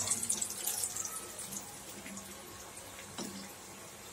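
Hot oil sizzling and crackling in a kadai as batter-coated green gram balls deep-fry, the sizzle dying down over the seconds. A single light knock about three seconds in.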